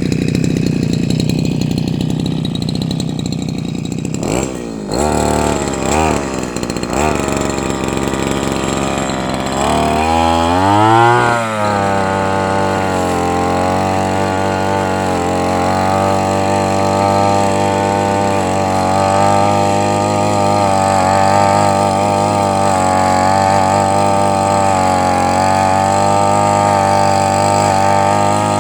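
A small engine running, then briefly faltering about four seconds in, blipped a few times, revved up sharply once around the middle and let fall back, after which it settles into a steady run.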